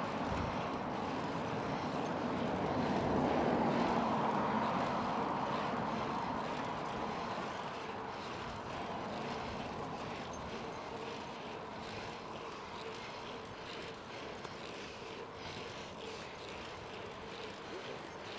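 Steady rush of bicycle tyres and wind while riding along a city road. A broad drone swells a few seconds in and fades away again.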